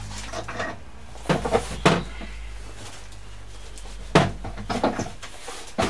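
Sharp wooden knocks and clatter of hand tools and boards being handled on a wooden pallet during nail removal: a quick cluster a little over a second in, the loudest single knock about four seconds in, and a few lighter ones after.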